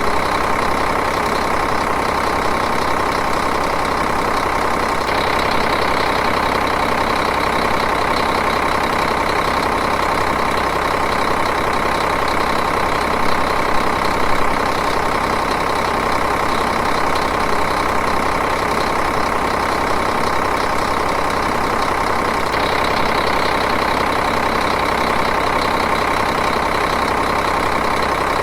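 Diesel engine idling steadily, an even, continuous running sound with the fast clatter of its combustion.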